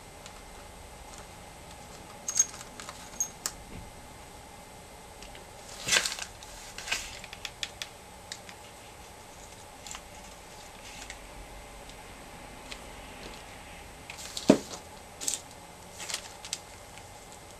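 Seashells clicking and clacking as they are handled and pressed into hot glue on a canvas: scattered, irregular small taps, a quick cluster about six seconds in, and a louder knock about three-quarters of the way through.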